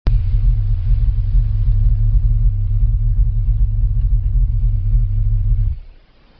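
BMW E39 525 giving a steady low rumble, the noise its owner presents as a problem with the car. It cuts off sharply near the end.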